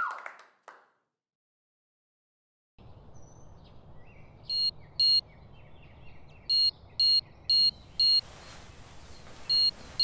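An alarm beeping: short, high electronic beeps about half a second apart, in groups of two, four and two with pauses between, over faint room noise. The first few seconds are near silence.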